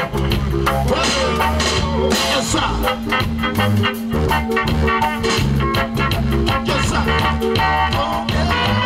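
Live band music with electric guitar over a steady, even beat.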